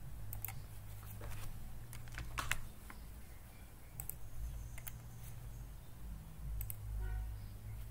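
Scattered, irregular clicks of a computer mouse and keyboard, spaced unevenly over several seconds, above a faint steady low hum.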